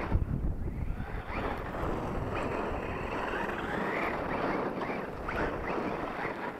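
Axial Yeti RC buggy driving fast over loose gravel, its electric motor whining up and down in pitch with the throttle as the tyres crunch through the stones. Wind buffets the microphone throughout, hardest just after the start.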